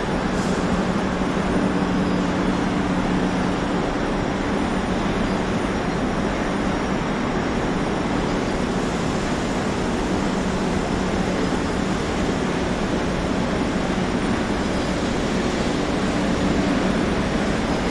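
Veneer roller dryer line with its automatic feeder running: a steady, loud mechanical din with a low hum that swells a little now and then.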